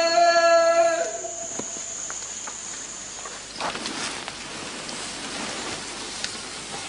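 Forest ambience with a steady high-pitched insect drone that stops about halfway through, leaving a noisy rustling background. A loud held note runs through the first second and ends about a second in.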